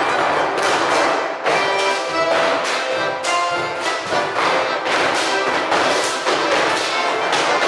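Instrumental music with sustained melodic notes over a steady beat.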